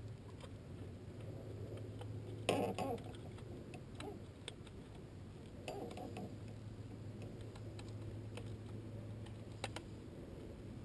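Scattered light clicks over a steady low hum, with a louder knock about two and a half seconds in and another near six seconds.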